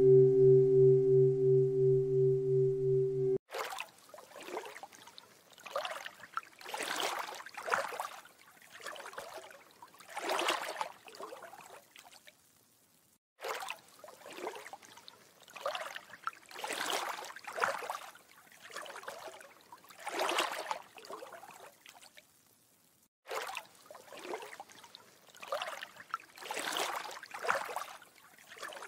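A pulsing, singing-bowl-like ringing tone that cuts off suddenly about three seconds in. It is followed by water lapping and trickling in repeated surges, about one every second or two, broken twice by brief silences.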